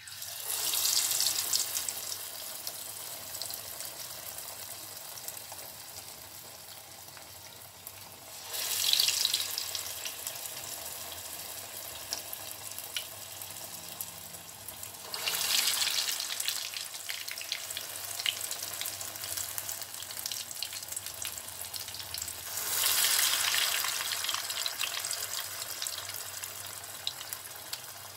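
Urad dal vadas deep-frying in hot oil on medium heat: a steady crackling sizzle that surges louder four times, about every seven seconds, as each new dollop of batter is dropped into the oil.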